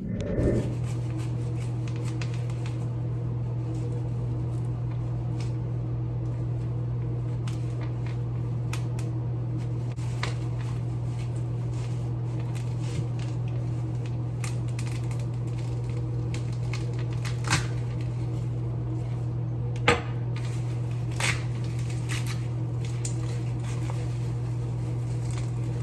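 Steady low machine hum at an even level, with a few light clicks or taps over it about two-thirds of the way through.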